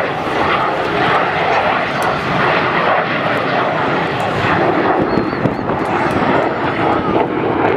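Saab 37 Viggen fighter's single Volvo turbofan jet engine, loud steady jet noise with occasional crackles as the aircraft flies its display.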